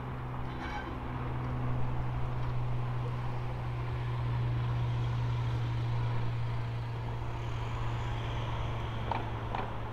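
A locomotive engine running steadily at idle: a constant low drone. Two faint clicks come near the end.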